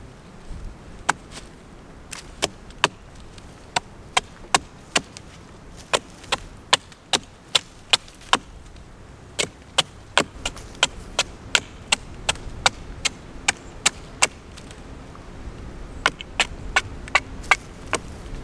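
Small hatchet chopping at the end of an upright wooden stake to point it, sharp wooden cracks about two to three a second, in runs with a couple of brief pauses.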